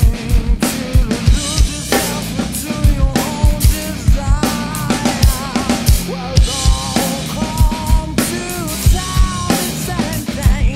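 A rock drum kit played in a stoner rock groove, with regular kick drum and snare hits and Zildjian cymbals washing over them. The rest of the band's recorded song plays alongside, with pitched melodic lines bending over the drums.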